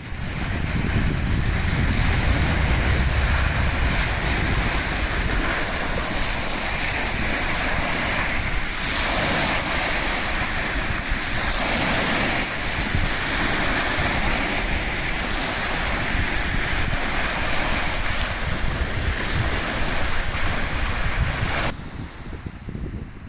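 Strong wind buffeting the microphone over waves washing onto the lakeshore: a loud, steady rush of noise with a heavy low rumble, gusting harder partway through and dropping away abruptly just before the end.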